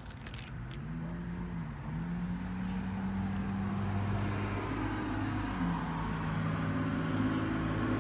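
A motor vehicle engine running, its pitch rising and falling slowly and its sound gradually getting louder.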